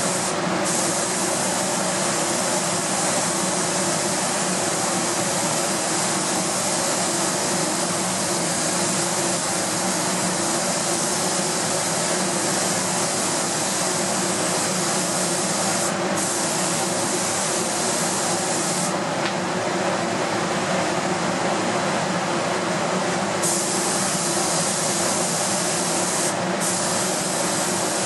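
Compressed-air gravity-feed spray gun hissing as it sprays a clear coat. It stops a few times as the trigger is released, once for about four seconds, over a steady lower rushing noise.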